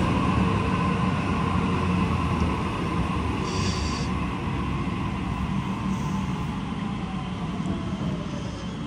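Sydney Trains electric double-deck train running past the platform with a low rumble and a motor whine that slowly falls in pitch as it slows. A brief high sound comes about three and a half seconds in.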